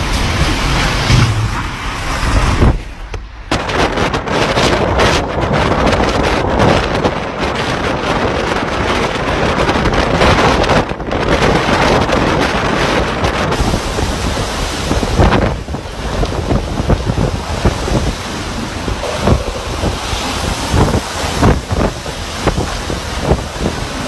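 Typhoon wind blowing hard in loud, gusting rushes, buffeting the microphone.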